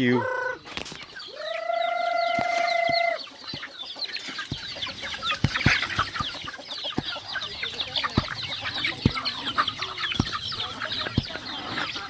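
A flock of chickens and chicks feeding on scattered feed, clucking and peeping over one another, with scattered light taps. About a second in there is one long, steady held call lasting about two seconds.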